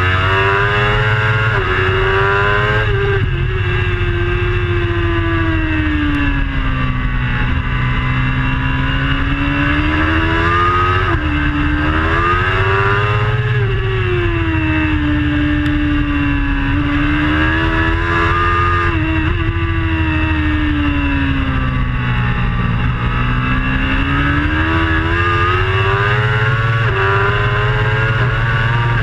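A racing superbike's engine heard from onboard at race pace. Its pitch repeatedly climbs and falls over a few seconds at a time as the bike accelerates and slows through the corners, with a few quick jumps in pitch at gear changes.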